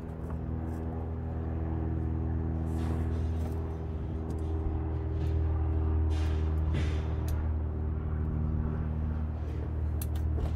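Steady low engine hum, like a vehicle idling, with scattered light clicks and rattles of snow-chain cable and buckle being handled.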